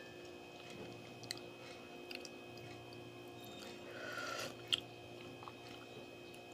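Quiet sipping of hot coffee from a metal spoon: a short soft slurp about four seconds in, with a few light clicks scattered through.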